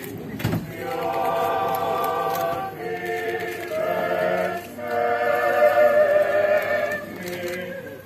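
A choir singing a slow Orthodox funeral chant in long, held notes. There is a dull thump about half a second in.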